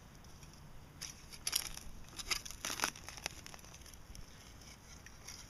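Serrated hand digger cutting and scraping into damp forest soil and leaf litter: a handful of short crunches and scrapes between about one and three and a half seconds in.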